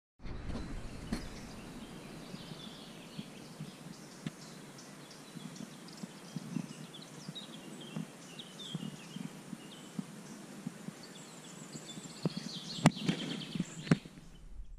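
Outdoor country ambience: small birds chirping repeatedly over a steady background hiss, with a few sharp knocks, the loudest two near the end.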